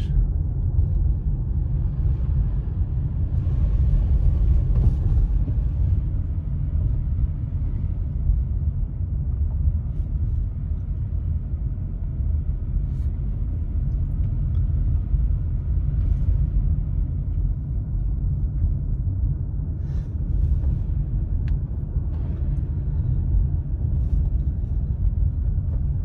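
Steady low rumble of a car driving slowly, heard from inside the cabin, with a few faint ticks now and then.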